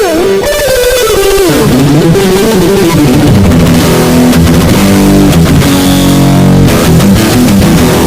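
Electric guitar being played as a tone test: a single-note line that bends and slides in pitch, then lower notes and chords from about two seconds in.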